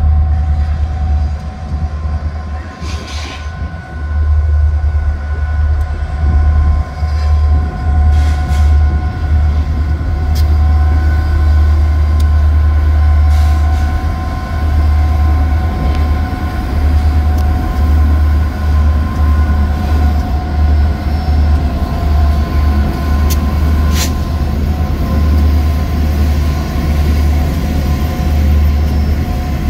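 Freight train climbing a grade on an elevated steel bridge approach, led by EMD SD60I diesel locomotives with 16-cylinder 710 two-stroke engines working under load: a loud, deep, continuous rumble of engines and rolling cars. Steady high-pitched tones run over it, and a few sharp clicks are heard.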